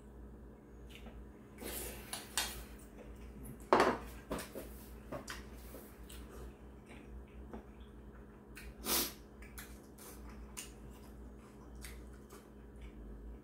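Metal spoon clinking and scraping against a ceramic bowl of rice and stew, and the bowl being set down on the table, in scattered clicks and knocks; the loudest is a sharp knock a little under four seconds in.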